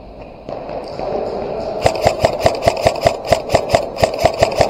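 Airsoft gun fired in rapid semi-automatic, a quick string of about fourteen sharp cracks at roughly five shots a second, starting nearly two seconds in.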